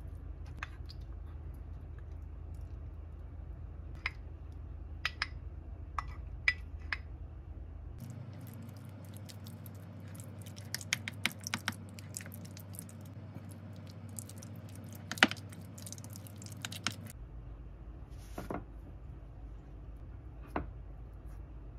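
Light clicks and taps of a wooden spoon against a bowl as thick strained yogurt is stirred together with plum compote. The taps are busiest in the middle, with one sharper knock, over a low steady hum.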